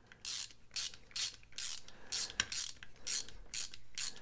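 Ratcheting screwdriver clicking in short bursts, about two to three a second, as its back-strokes turn small handle screws into a folding knife.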